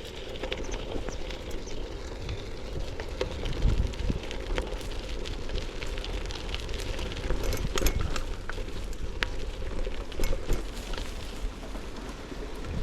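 Bicycle rolling along an unpaved dirt path, the tyres giving a steady crackle of many small clicks over a low rumble.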